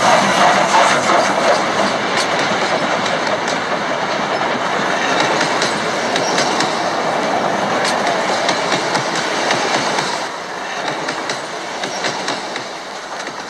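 Southern Pacific Daylight streamlined passenger cars rolling past at speed: a steady rush of steel wheels on the rails with occasional clicks from the rail joints, easing a little near the end.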